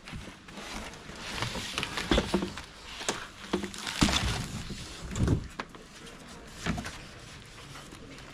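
Bubble wrap and cardboard rustling and knocking as a bicycle is lifted out of its shipping box, with several dull thumps. It goes quieter near the end.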